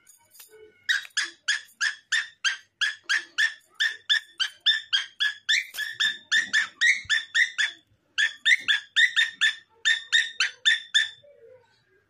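Pet parrot calling in a rapid, even series of short, high-pitched chirps, about four a second, with a short pause about eight seconds in.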